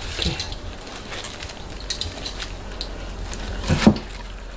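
Coarse salt crunching and rustling as halved radishes are rolled in it in a steel bowl and packed into an earthenware crock, with scattered small clicks. A louder single knock comes about four seconds in as a radish is pressed into the crock.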